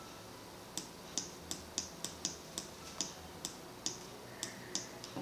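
Single key taps on a computer keyboard, about two to three a second and unevenly spaced, over a faint steady hum.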